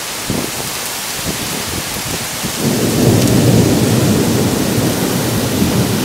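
Heavy summer rain falling steadily, with a low rumble of thunder that swells up about halfway through and carries on.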